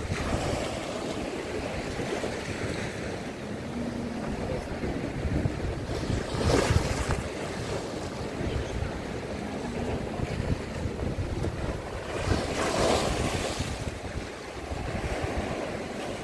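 Sea waves washing and splashing against a flat stone ledge, with two bigger waves breaking about six and a half and thirteen seconds in. Wind rumbles on the microphone.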